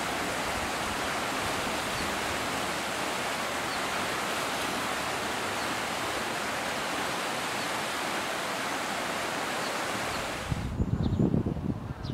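A shallow, fast river rushing over a stony bed: a steady hiss of water. About ten seconds in it cuts off suddenly, giving way to irregular low rumbling thumps.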